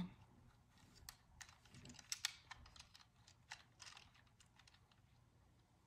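Faint, scattered small plastic clicks of a Beyblade top and its launcher being handled and fitted together.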